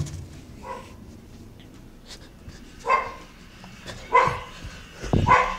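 A dog gives four short barks, the first one faint. A low thump comes near the end.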